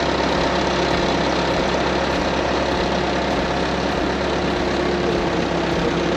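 Skid-steer loader's engine running steadily at a constant speed.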